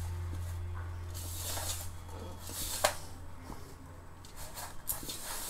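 A hand rubbing and squeezing a crumbly flour-and-semolina dough mixture in a stainless steel bowl: irregular soft scraping strokes, with a light click against the bowl about three seconds in. A low hum fades out in the first two seconds.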